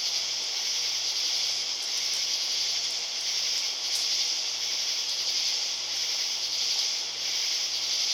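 Steady, high-pitched chorus of night insects, unbroken throughout, with a faint low hum pulsing about one and a half times a second underneath.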